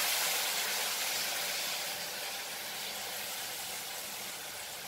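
Lentils frying with onions and spices in hot coconut oil in a kadai, a steady sizzle that is loudest at first and slowly dies down as the freshly added dal settles into the oil.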